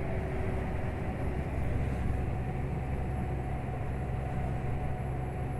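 Scania R440's DC13 13-litre inline-six diesel pulling hard under a full 53-tonne load up a long grade in 12th gear, heard from inside the cab as a steady low drone with road noise.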